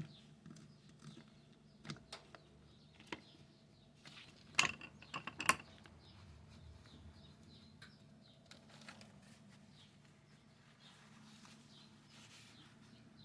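Small metal motor parts being handled on a bench: scattered light clicks and knocks, with a cluster of sharper clicks about four and a half to five and a half seconds in, over a faint steady hum.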